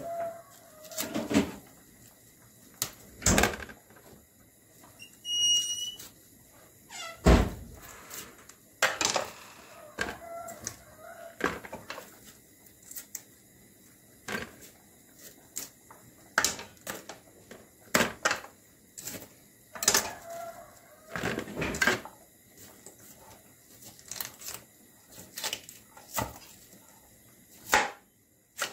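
Fresh cauliflower being broken apart by hand into florets on a plastic cutting board: irregular sharp snaps, crunches and knocks, one every second or two.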